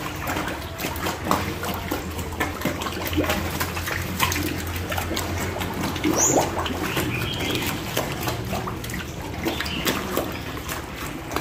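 Several piglets slurping and chomping soaked bran mash from a trough: a dense, irregular run of wet smacking and lapping sounds over a steady low hum.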